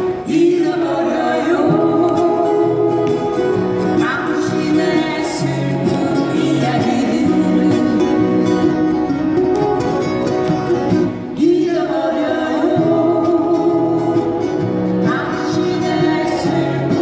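Live acoustic guitar band: several acoustic guitars strummed together under sung vocals, with short breaks between phrases.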